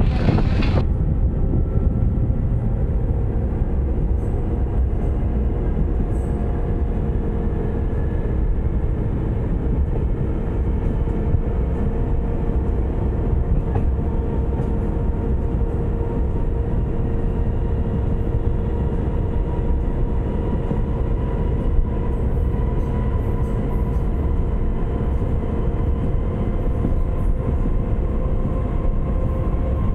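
A train running along the track: a steady, loud rumble with a faint whine that slowly rises in pitch through the second half. A short blast of wind noise on the microphone at the very start.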